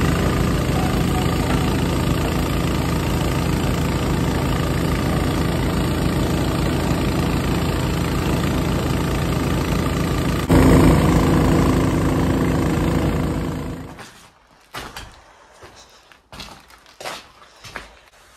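Engine-driven water-well drilling rig running steadily and loud while it bores, growing louder about ten seconds in, then cutting off suddenly. After it, a few scattered knocks.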